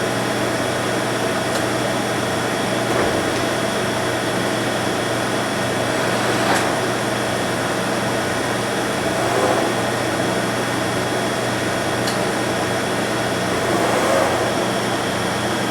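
DeVlieg 43K-72 machine tool running its programmed rectangle milling pattern: a steady machine hum with several fixed tones, swelling briefly three times.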